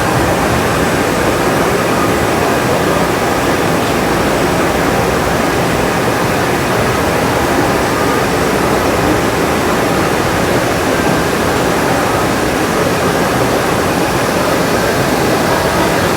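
Steady, even din of a busy exhibition hall, with no single sound standing out.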